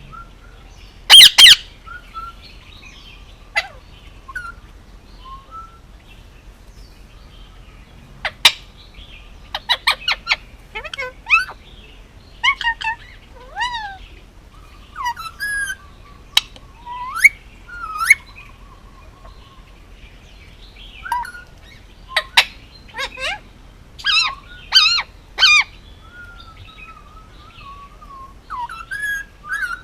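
Male Indian ringneck parakeet calling in short, scattered bursts of sharp squawks and chirps, with some rising and falling whistled notes between them. The loudest calls come about a second in and in a cluster about three quarters of the way through.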